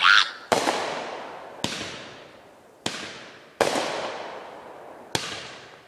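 Fireworks exploding: five sharp bangs at uneven intervals of about one to one and a half seconds, each trailing off over about a second.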